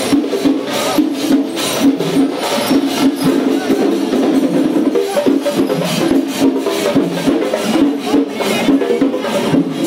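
Festival percussion ensemble playing: rapid drum strokes and cymbals over held tones from wind instruments, a loud continuous beat.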